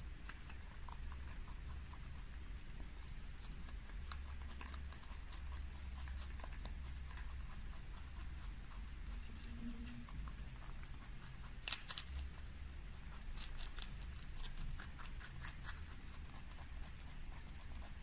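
Rabbit chewing salad leaves and vegetables, a series of crisp crunches with quick dense runs about twelve seconds in and again a little after, over a low steady rumble.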